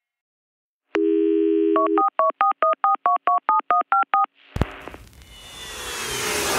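Telephone dial tone for about a second, then a quick run of about a dozen touch-tone keypad beeps, each two tones at once. Near the end a thud sets off a swelling whoosh that builds toward electronic music.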